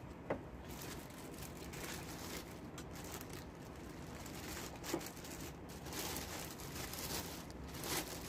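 Clear plastic bag crinkling and rustling as a yellow power drill wrapped in it is lifted out and handled, with a few louder crackles, one about five seconds in and one near the end.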